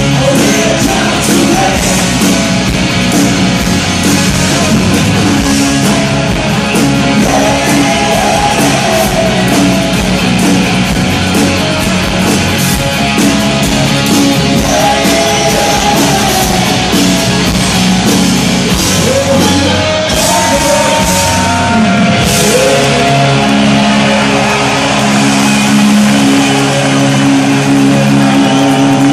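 Live rock band playing loud through a PA: electric guitar, drums and a male lead vocal singing in phrases. Steady held chords ring for the last several seconds.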